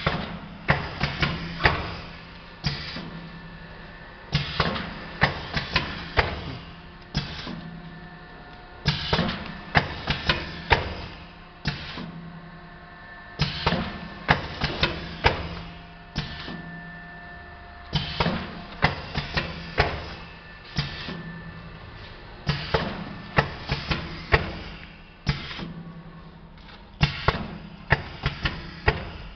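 Suture overwrap packing machine cycling. About every four and a half seconds its pneumatic actuators and mechanism make a quick cluster of sharp clacks and knocks, over a steady low hum.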